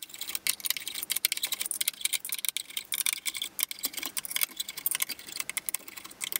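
Rapid, irregular metallic clicking and light clatter from a hand tool turning out the long bolts that hold down a Stirling engine's heater head.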